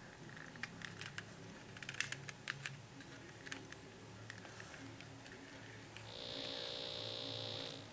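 Pocket AM radio tuned between stations, giving faint static with scattered clicks and crackles. About six seconds in, a steady buzz comes through the radio's speaker as it picks up the signal from the electrical wiring, and it cuts off just before the end.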